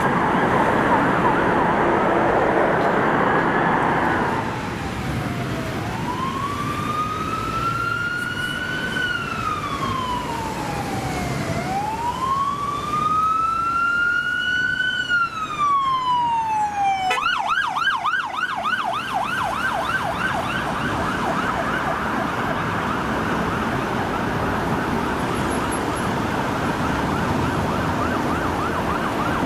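Emergency siren of an unmarked BMW 3 Series on blue lights: a slow wail rising and falling twice, then switching about two-thirds of the way through to a fast yelp. For the first few seconds, heavy road and engine noise from a passing fire engine is louder than the siren.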